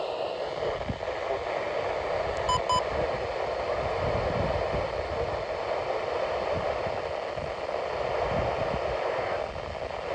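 Weather radio hissing with steady static, with two short high electronic beeps in quick succession about two and a half seconds in.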